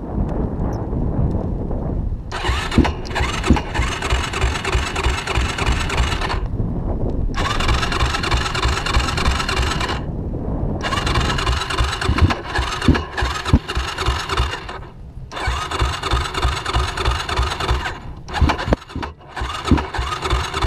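Yamaha YFZ450 quad's single-cylinder four-stroke engine under hard throttle, running loud in long stretches of several seconds that cut off suddenly into short quieter letups as the throttle is rolled off and back on.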